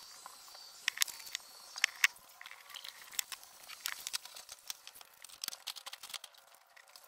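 Small metal and plastic parts being handled and set down on a workbench: scattered light clicks and taps, a few sharper ones about one and two seconds in, then many quicker small ones.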